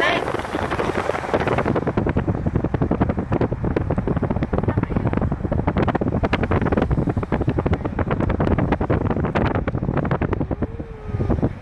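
Wind buffeting the microphone: a loud, irregular low rumble that flutters rapidly.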